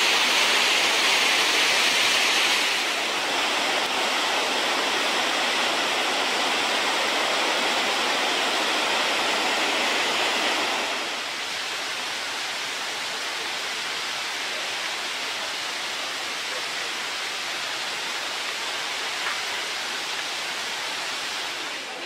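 White water of the Krimml Waterfalls crashing down over rock in a steady rush, heaviest in the higher-middle range. The level drops a step about three seconds in and again about eleven seconds in.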